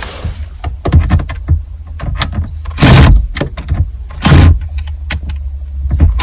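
Clicks, knocks and rattles of a cordless drill being handled and set against the bolts of a car's dashboard trim, with two short loud bursts about three and four and a half seconds in.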